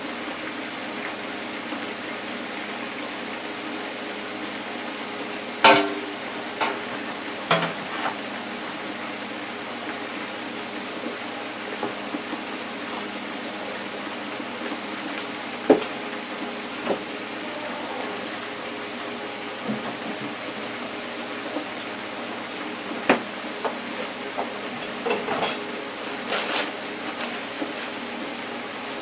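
Seafood deep-frying in an electric countertop deep fryer: the oil sizzles steadily, with scattered sharp pops and crackles.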